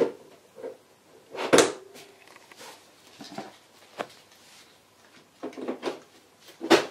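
Hard plastic Little Tikes Tikes Place playset parts knocking and clicking as pillars are pushed into the base. Several sharp knocks, the loudest about a second and a half in and another near the end, with lighter clicks between.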